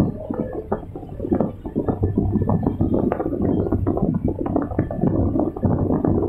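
Hydraulic excavator running under load, heard from inside its cab: a steady low engine hum with a dense clatter of small knocks and rattles as the loaded bucket swings out and is emptied.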